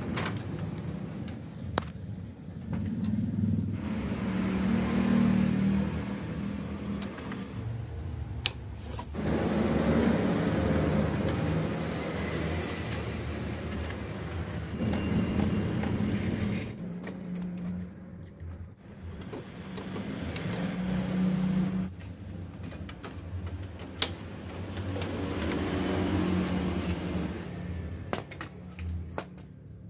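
Scattered clicks and knocks of hands and a screwdriver on the plastic and metal parts of a Canon imageRUNNER copier as its fixing (fuser) assembly is unplugged and taken out. Under them runs a steady low rumble.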